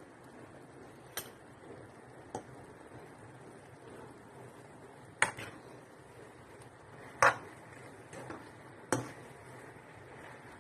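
A handful of short, sharp clicks and light knocks of cookware, about six spread over ten seconds, the loudest about five and seven seconds in, over a faint steady background.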